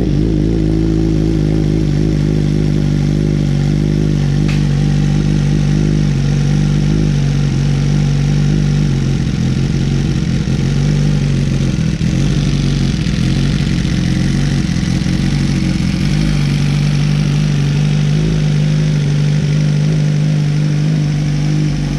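A 2023 Suzuki GSX-R1000R's inline-four engine idling steadily through a full titanium M4 Street Slayer exhaust with a carbon-fibre can, just after being fired up.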